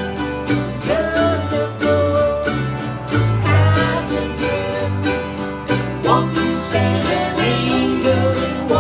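Acoustic country-bluegrass band playing: mandolin and two steel-string acoustic guitars strumming in a steady rhythm, with alternating bass notes and voices singing.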